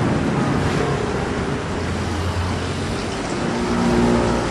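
A procession of motor scooters riding past one by one, their small engines running as each goes by; the sound swells as the nearest scooter passes close about four seconds in.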